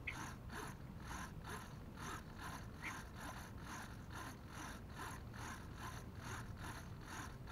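Small hobby RC servos whirring in quick, even pulses, about four a second, as they swing their long arms back and forth on command from the transmitter during a receiver range test; the movement shows the receivers are still holding the radio link. The sound is faint, a light gear buzz.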